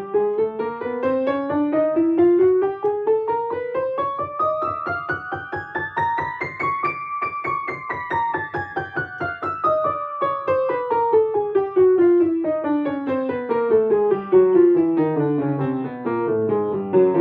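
Piano playing a fast chromatic scale with both hands an octave apart in parallel motion, climbing for about seven seconds and then running back down.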